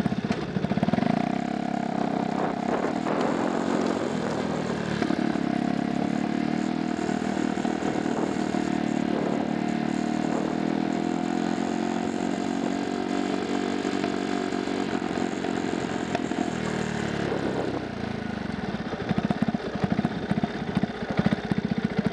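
Single-cylinder 125cc four-stroke proto race bike engine, heard from a camera mounted on the bike: a lumpy idle, then it pulls away and runs at steady low revs, then drops back to a lumpy idle near the end as the bike rolls to a stop.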